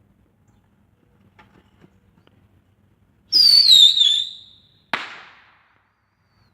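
Bottle rocket launching: a loud whistle falling in pitch for about a second and a half, then a single sharp bang as it bursts.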